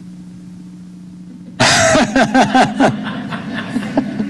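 A steady low hum on the room's audio feed, then about a second and a half in, a group of people in the meeting room break into laughter and chuckling that fades toward the end.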